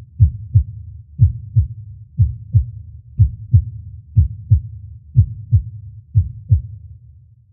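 Heartbeat sound effect: seven pairs of low lub-dub thumps, about one pair a second, over a low hum, fading out at the end.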